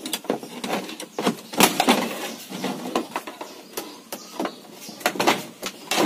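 Long screwdriver prying up the plastic control-panel cover of a Sharp twin-tub washing machine: a run of irregular plastic clicks and knocks as the cover's catches give, the sharpest about a second and a half in and again about five seconds in.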